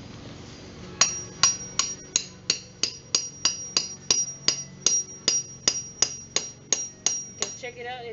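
A hammer striking a metal grommet setting tool, driving a small grommet into a banner: about nineteen quick, even blows, roughly three a second, each with a bright metallic ring, starting about a second in and stopping near the end.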